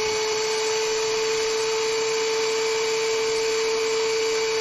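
DeWalt 13-inch thickness planer's motor and cutter head running at full speed with a steady, unchanging whine.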